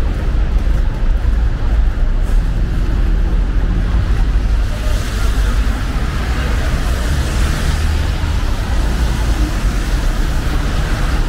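Street traffic noise: a steady low rumble with tyre hiss, swelling as a vehicle passes about halfway through.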